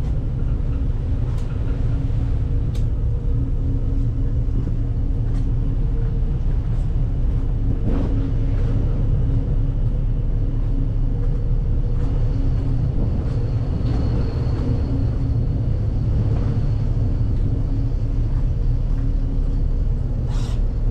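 Steady low rumble and hum of a ferry's engines, with a few faint clicks and knocks.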